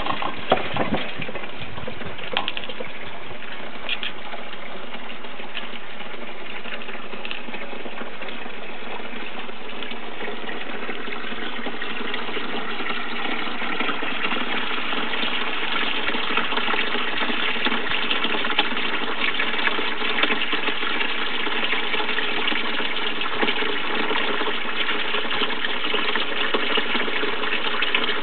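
Water pouring steadily from a pipe into a plastic tub, a continuous rushing splash that grows a little louder about halfway through. A few knocks in the first second.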